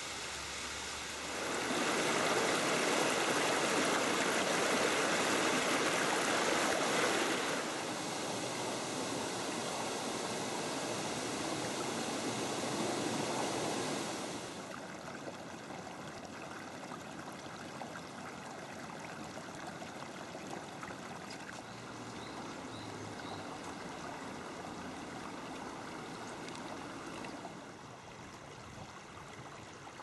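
Shallow stream running over rocks, a steady rush of water. It swells louder about two seconds in, then drops back in steps.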